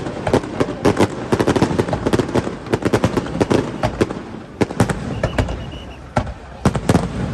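Aerial fireworks going off: a rapid, dense string of bangs and crackles for the first few seconds, thinning to a few separate bangs in the second half.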